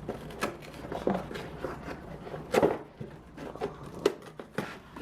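Handling noises from unboxing: scattered light taps, knocks and rustles of packaging and items being moved, with one louder knock about halfway through.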